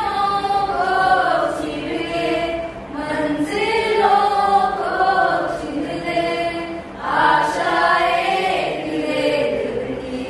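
A group of voices singing a song together, with held and sliding notes in phrases that break briefly about three and seven seconds in.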